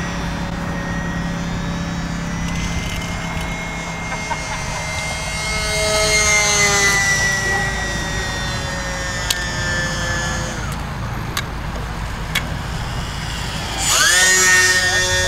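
A micro electric RC biplane's motor and propeller whining overhead, its pitch sliding up and down as it manoeuvres and changes throttle. It grows louder about six seconds in. Near the end it comes back much louder, with the pitch dropping and then holding steady.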